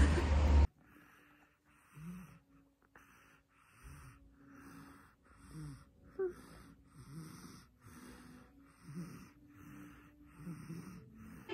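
A sleeping toddler breathing fast and audibly, each breath a short rasp with a low catch in it, about three breaths every two seconds.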